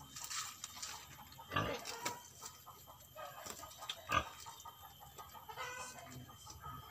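Short farm-animal calls on and off, a few sudden ones spread over several seconds and a longer pitched one near the end.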